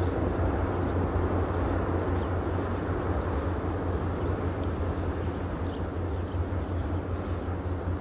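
SNCF BB 67400-class diesel locomotives' SEMT Pielstick V16 PA4 engines working at full power up a steep grade: a deep, steady rumble that slowly fades as the train pulls away.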